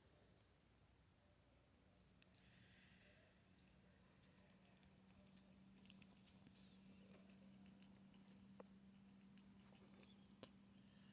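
Near silence: faint ambience with a thin, high steady trill that breaks off now and then, a low hum setting in about two seconds in, and two small clicks near the end.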